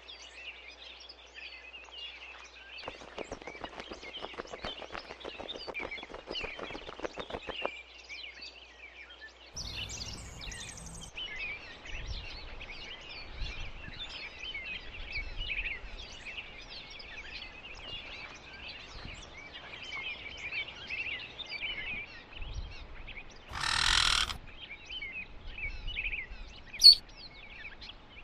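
Continuous twittering of small birds in the background. A run of rapid clicks comes a few seconds in, a short burst of noise about 24 seconds in, and a single sharp knock near the end.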